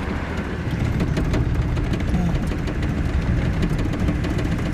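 Mercedes G-class off-roader's engine running steadily as it drives along narrow-gauge railway track, with a run of short knocks and rattles as the wheels bump over the sleepers.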